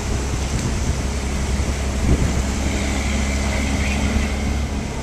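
Truck engine running steadily, heard from the open back of the truck as it drives through deep floodwater, with a steady rush of noise.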